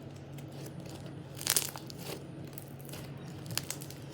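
Thick, fluffy slime being squished and stretched by hand, giving a few crackling pops. The loudest pop comes about a second and a half in.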